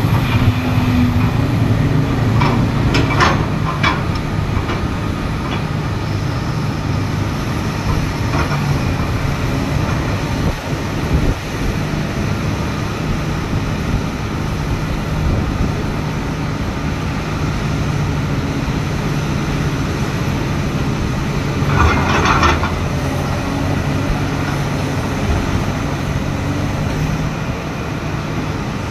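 Excavator diesel engine running steadily under load, with brief metallic clanks and squeals from its tracks and arm joints, about three seconds in and again about twenty-two seconds in.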